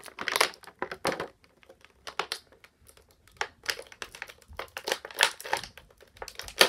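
Clear plastic packaging crinkling and rustling in short, irregular bursts as it is handled, with a sharp click near the end.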